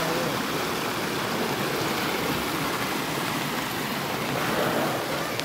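Steady rush of water from flooding after heavy rain, an even noise with no distinct events.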